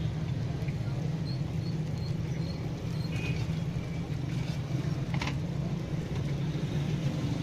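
Steady low mechanical rumble, with a brief sharp click about five seconds in.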